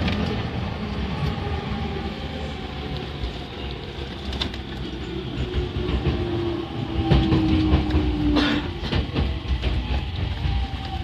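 Running noise of a JR Yamanote Line E231-500 commuter train heard inside the passenger car: a steady rumble of wheels on rail, with a few sharp clacks over rail joints. A motor whine slowly falls in pitch as the train slows on its approach to the next station.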